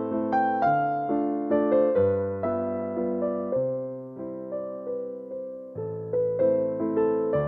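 Background piano music: a gentle melody of struck notes over bass notes that change about once a second.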